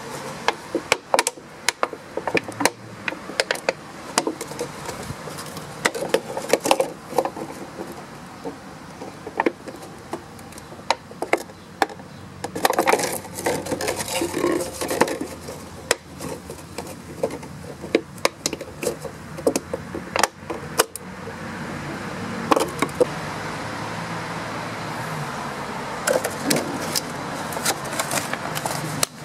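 Scissors snipping through a thin plastic 2-litre pop bottle: a long run of sharp snips and crackles of the plastic, with a steady hum underneath.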